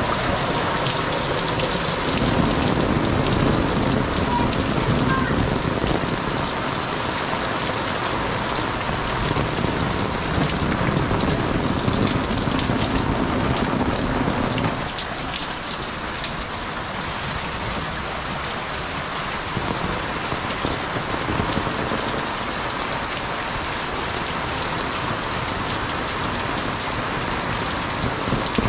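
Heavy rain pouring down and splashing on wet concrete and surfaces close by, a dense, steady hiss. It is fuller and louder for the first half, then eases to a lighter, even patter from about halfway through.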